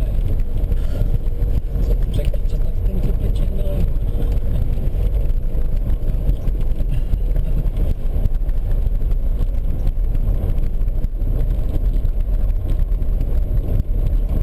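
Car engine and tyre noise heard from inside the cabin while driving on a snowy road: a steady low rumble.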